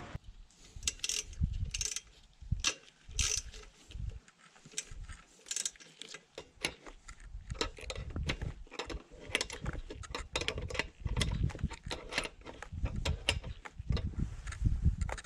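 Ratchet wrench clicking in runs of strokes as it turns the tensioning bolt to tighten a bandsaw mill blade, with some dull knocks of metal handling.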